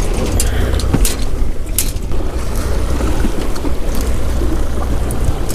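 Steady low rumble of a boat with wind on the microphone, broken by several sharp clinks of metal as wire-mesh crab pots are handled and baited.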